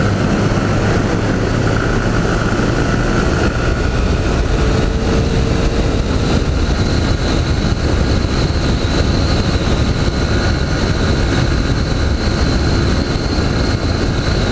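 Honda CG Fan 160 motorcycle's single-cylinder four-stroke engine running steadily at high revs under full throttle.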